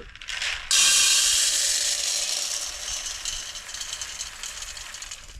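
Shelled corn poured into the feed grinder's hopper: a rattling rush of kernels that starts suddenly about a second in and slowly tapers off.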